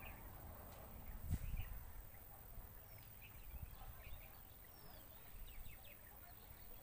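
Faint outdoor ambience with a few short, high bird chirps and a soft low thump about a second and a half in.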